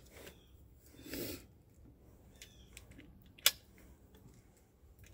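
9mm rounds being thumbed one at a time into a PTR 9CT's MP5-pattern magazine, making sharp metallic clicks. A few light clicks come past the middle, then one loud snap about three and a half seconds in.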